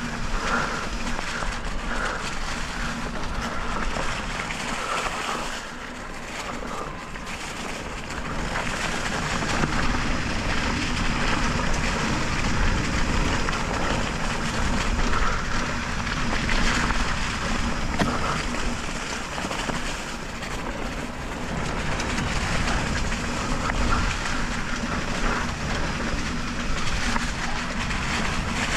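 Wind buffeting a helmet-mounted action camera's microphone, mixed with the rumble of mountain bike tyres rolling over a dirt trail, with a steady low hum underneath. The noise swells and eases with speed.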